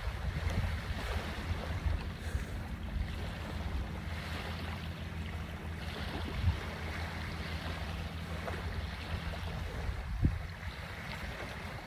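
Wind buffeting the microphone with a low, fluttering rumble over a steady wash of surf, broken by two brief knocks, one midway and one near the end.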